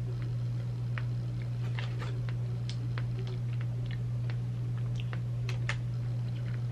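Chewing a bite of cake pop: scattered soft clicks from the mouth, over a steady low hum.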